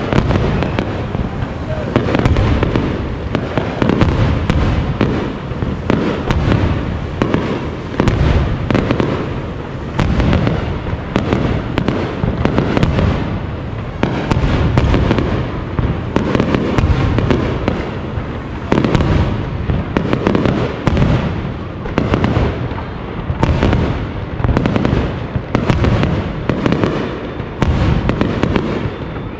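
Aerial fireworks display: shells bursting in a dense, unbroken barrage of loud bangs that overlap one another, with crackling between them.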